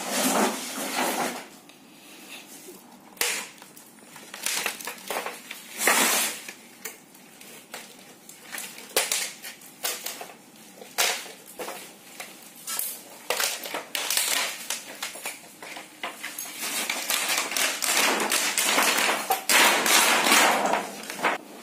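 Thin plastic reflector sheet of an LED TV backlight being handled and pulled off the LED strips on the metal back panel: crinkling rustles and light taps and clicks, heavier in the last few seconds.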